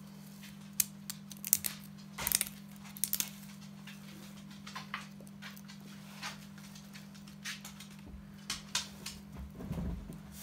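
Irregular small clicks and taps as a thin plastic spacer ring is handled and pushed down over a bicycle hub's axle onto the freewheel sprockets. The loudest clicks come in the first few seconds. A steady low hum runs underneath.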